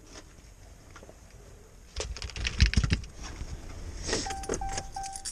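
Rustling and knocks of someone climbing into a car, then the car's warning chime beeping at one pitch in short, evenly spaced dings, about two and a half a second, starting about four seconds in.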